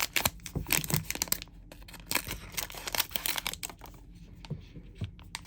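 Crinkling and tearing of a trading card pack's wrapper as it is ripped open, with irregular sharp crackles that are denser in the first half.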